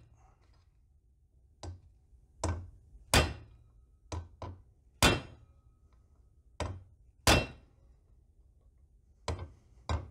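Hammer blows on a steel punch driving at a seized bolt on a railcar brake part: about ten sharp metallic knocks at an uneven pace, starting after a second and a half of quiet. The bolt, soaked with penetrating oil, is still tight and does not give.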